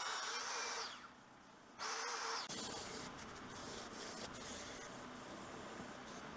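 Electric drill spinning a foam-backed sanding disc against a turned wooden rolling pin. It stops about a second in, runs again briefly around two seconds, then gives way to a quieter steady hum with light clatter of tools being handled.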